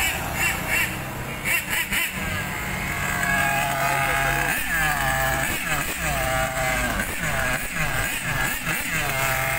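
Motor vehicle engines in street traffic, with a pitch that rises and falls over and over, about twice a second, in the second half.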